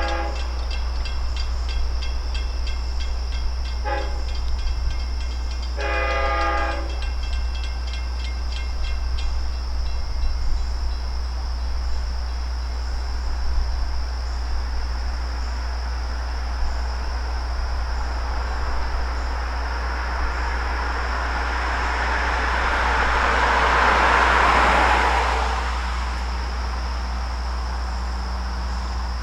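Long Island Rail Road DM30AC locomotive's horn sounding: a blast ending at the start, a short blast about four seconds in and a longer one about six seconds in. The train then approaches and passes, its noise swelling to its loudest about twenty-four seconds in and dropping off quickly, over a steady low hum.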